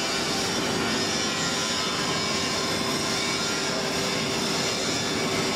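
Steady foundry machinery noise: an even mechanical rush with a constant hum running through it.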